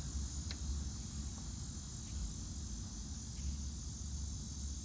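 Steady background chirring of crickets over a low hum, with a single faint click about half a second in.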